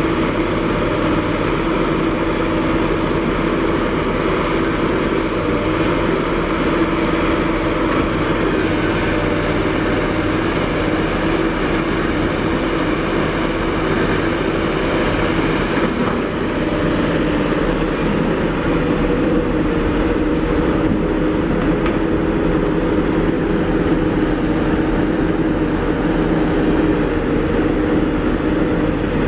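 Heavy diesel earthmoving machinery, an excavator and dump trucks, running steadily with an even engine drone.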